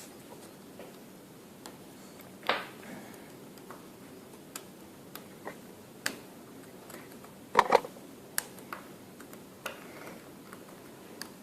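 Scattered small clicks and taps of hand tools against small phone parts, with a louder knock about two and a half seconds in and a quick double knock near eight seconds.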